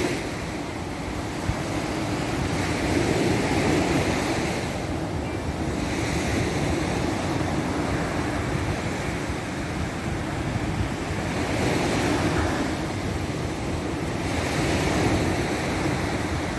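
Surf breaking and washing up a beach, swelling and easing every few seconds, with wind buffeting the microphone.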